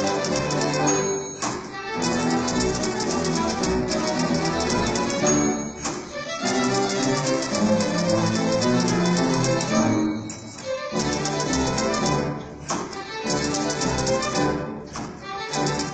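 Instrumental ensemble music led by bowed strings, with rapid fine clicking over it and a short high ring about a second in and again about five seconds in. The music pauses briefly several times.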